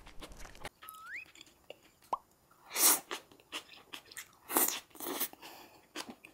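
Noodles being slurped and chewed: three loud, short slurps of stir-fried udon, the first a little under three seconds in and two close together near the end, with soft mouth clicks between. A short rising tone sounds about a second in.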